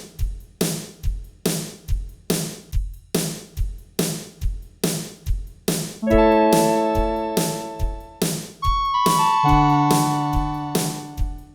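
A KORG Trinity drum track playing a steady kick-and-snare beat. About six seconds in, the Synclavier 'Butter' synth preset comes in over it with sustained electric-piano-like chords that change several times.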